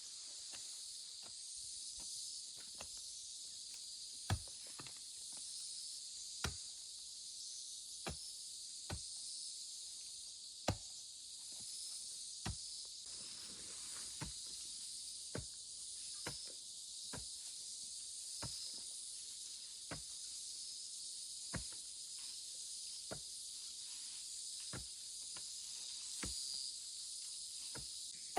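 Steady high-pitched chorus of insects, with sharp knocks or taps every one to two seconds, a few of them louder.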